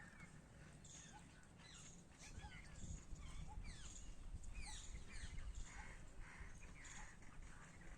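Birds chirping, with many short, quick notes sliding up and down, over a faint low rumble that swells in the middle.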